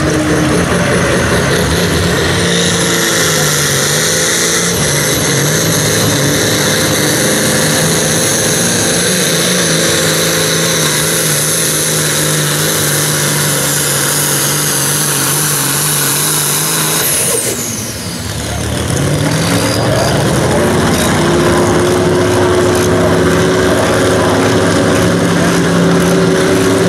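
Turbocharged diesel engine of a John Deere super stock pulling tractor run flat out under load as it drags a weight-transfer sled, with a high turbo whistle over the engine note. About 17 seconds in the throttle comes off at the end of the pull: the engine and whistle fall in pitch together, and the engine then runs steadily at lower revs.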